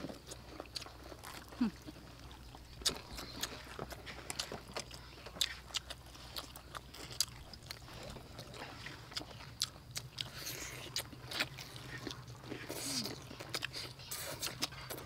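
Several people biting into and chewing crispy fried chicken legs in chili sauce: irregular sharp crunches scattered among steady chewing.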